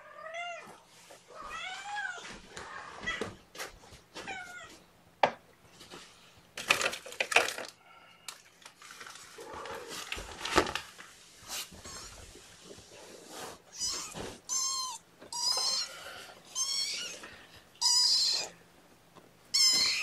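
Three-and-a-half-week-old kittens mewing over and over in short, high calls that rise and fall in pitch, the later calls higher and louder, with brief rustles on the bedding in between.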